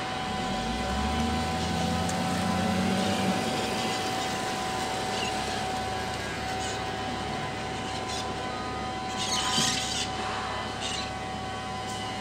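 Diesel engine of a Volvo L60F wheel loader running steadily at a distance, its revs rising about half a second in. A small motorcycle rides past, and a short louder hiss comes about three-quarters of the way through.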